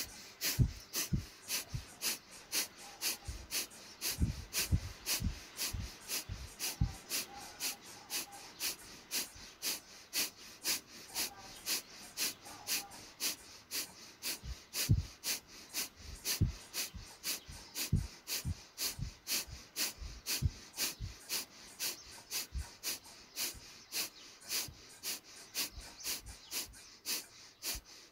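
Rapid forceful exhalations of yogic breathing (kapalabhati), short sharp puffs of breath in a steady rhythm of about three a second.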